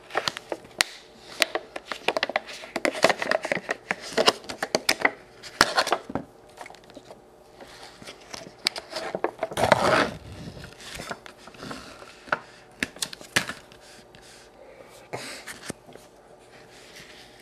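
Plastic Noosa yogurt tub being opened by hand: the snap-on lid pried off and the container handled, a run of crackling and clicking plastic with a louder rustle about halfway through and scattered clicks after.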